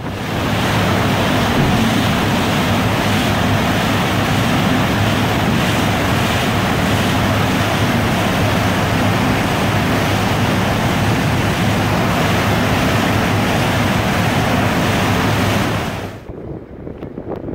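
Steady rush of wind and water with a low engine drone from the MS Sunnhordland under way; the noise drops off sharply near the end.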